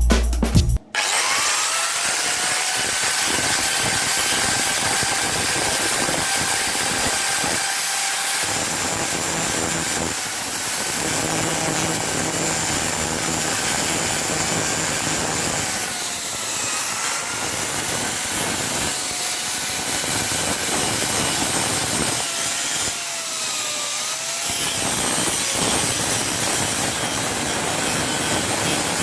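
Electric angle grinder spinning up and then grinding steel, a steady harsh hiss with a whine that dips in pitch twice as it is pressed into the work.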